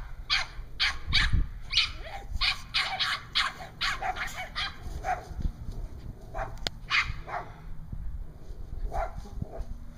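Several guard dogs barking excitedly, a dense run of rapid barks that thins to scattered barks in the second half.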